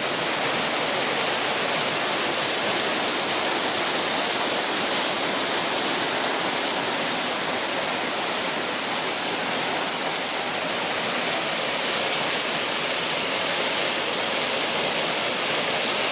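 A waterfall rushing steadily: an even hiss of falling water with no change throughout.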